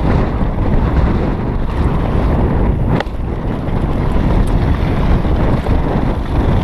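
Wind buffeting the camera microphone over the rumble and rattle of a mountain bike rolling fast on a dirt trail, with one sharp knock about three seconds in.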